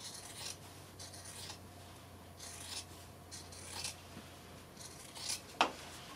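Scissors cutting through sweatshirt fleece, taking off the bottom band just above its stitching, in about five separate snips roughly a second apart. A sharp click comes near the end.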